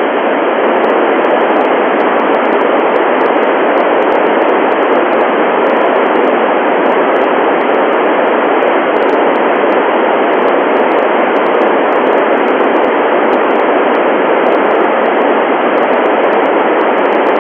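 FM receiver static: a steady, loud hiss from an Icom IC-9700 with its squelch open on the 70 cm satellite downlink, heard while no station or carrier is coming through.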